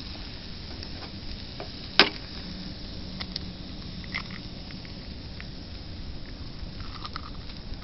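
Steak sizzling on the hot top of an ammo-can wood stove, with scattered light crackles and ticks. One sharp click about two seconds in is the loudest sound.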